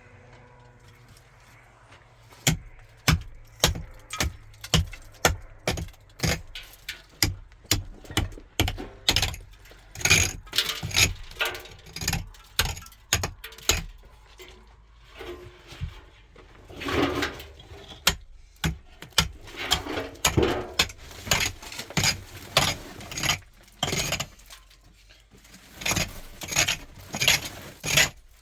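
Repeated sharp strikes at about two a second, with a metallic clink to them, stopping twice for a second or two; between strikes there are stretches of scraping.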